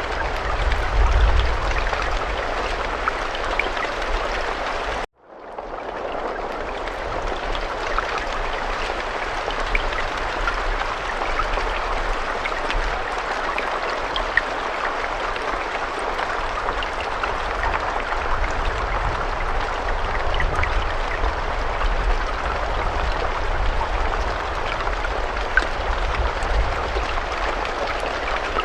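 Steady rain with scattered small drop ticks and a low rumble underneath. About five seconds in it cuts out almost to silence for an instant, then fades back in.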